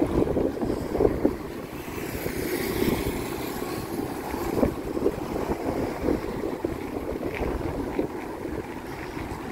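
Wind buffeting the microphone of a camera carried on a moving bicycle: a steady low rumbling rush, with a brief hiss swelling about two to three seconds in.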